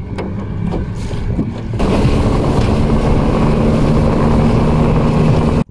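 An anchor rope is hauled in hand over hand, with scattered knocks and water sounds. About two seconds in, a boat's outboard motor is suddenly heard running steadily at speed, with wind and rushing water. It cuts off abruptly near the end.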